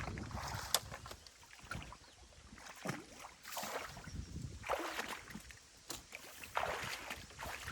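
Water sloshing and splashing in uneven swells, as from work in a shallow stream at a beaver dam, with one sharp click about a second in.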